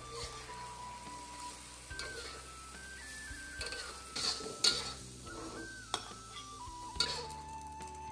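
Metal spatula scraping and knocking against a steel wok as eggs and greens are stir-fried and sizzle, with a few sharp clanks past the middle and near the end. Background music with a simple melody plays over it.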